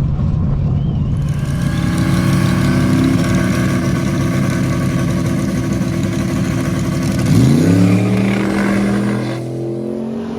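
Fox-body Mustang drag car's engine running hard on a test pass. The engine note drops and climbs again about seven seconds in, then fades away near the end.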